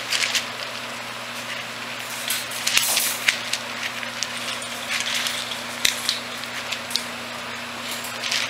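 Wood-pellet bedding rustling and crackling as puppies scramble over it, with scattered sharp clicks and scratches. A steady low hum lies under it.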